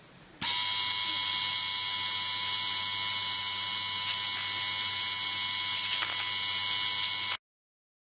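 Rechargeable handheld 50 kHz ultrasonic cleaner running with its tip in water in a plastic tank: a loud, steady buzzing hiss with a few high steady tones. It starts abruptly about half a second in and cuts off a little after seven seconds.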